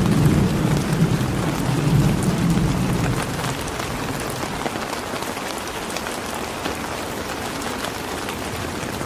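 Steady rain falling, a dense even patter. A low rumble under it fades away over the first three seconds.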